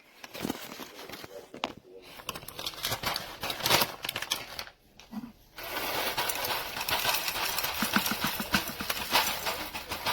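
Whole roasted coffee beans poured into a Cuisinart coffee grinder's chamber, rattling as they land. A few scattered clatters come first, then after a brief pause a dense, continuous rattle from about halfway through.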